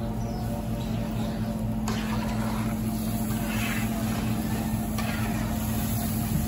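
A steady low mechanical hum, with a slotted metal spoon stirring and sloshing through meat and oily broth in a large aluminium pot.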